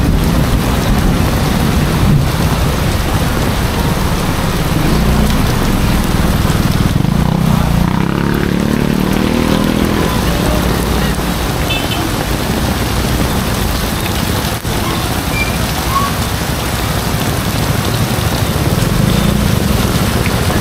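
Heavy rain pouring steadily, a dense even hiss with a low rumble underneath. About eight seconds in, a pitched drone rises for a couple of seconds.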